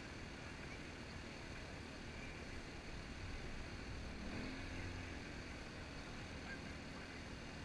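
Faint steady outdoor background noise, with a brief low pitched sound about four and a half seconds in.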